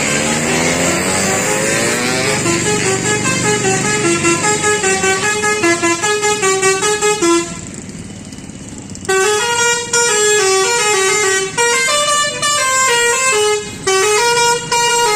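Tourist bus's telolet horn, a multi-tone musical horn, playing a tune of quick stepping notes. It stops for about a second and a half about halfway through, then plays on.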